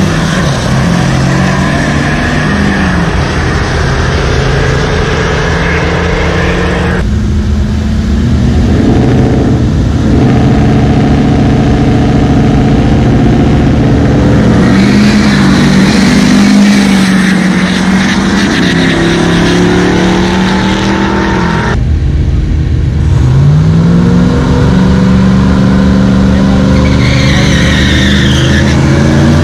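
Pickup truck engines at a drag strip, revving and accelerating hard down the track, the engine pitch rising as each truck pulls away. The sound cuts abruptly twice between runs.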